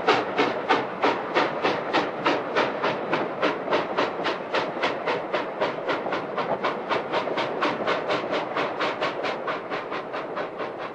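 Added sound effect of a steam locomotive chuffing, a steady beat of about three to four chuffs a second that slowly gets quieter.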